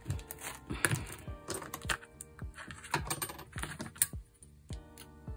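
Quick, irregular clicks and taps of small plastic snap-button parts being handled and pressed together on a cutting mat, the snap not fitting together. Light background music runs underneath.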